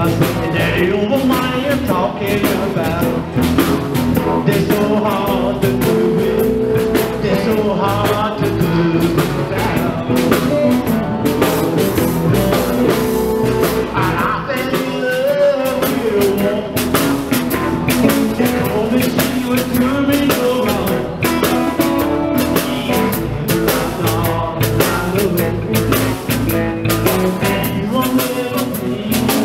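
A live band playing rock and blues: a Fender electric bass, a drum kit and an electric guitar, with drum strokes keeping a steady beat. A lead guitar plays a bending, gliding line around the middle.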